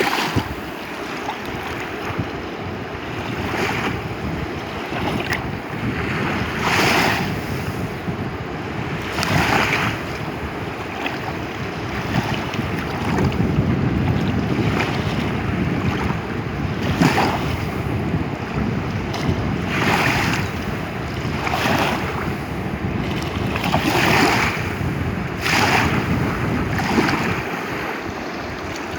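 The Kali Gandaki river flowing: a steady rush of water that swells every couple of seconds, with wind noise on the microphone.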